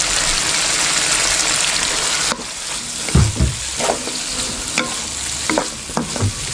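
Chicken pieces frying in hot oil and sambal in a wok, with a loud sizzle that drops suddenly after about two seconds. Then a wooden spatula stirs and scrapes the food around the wok, with a couple of knocks against the pan.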